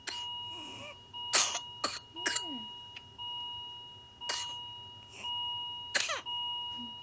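A child's whooping-cough fit: harsh, separate coughs about five times, several followed by a pitched breath sound that falls in pitch. A steady electronic beeping tone runs underneath, breaking briefly about once a second.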